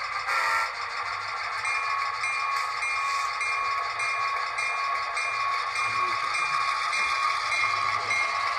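Sound-equipped model diesel locomotive moving slowly on track, its onboard speaker playing a steady diesel engine sound. From about two seconds in, a short high ding repeats two to three times a second.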